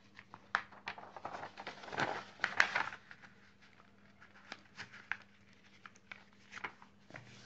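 Paper rustling and crinkling as a test booklet's page is turned and the sheet is moved, loudest about two to three seconds in, with scattered light clicks and taps after.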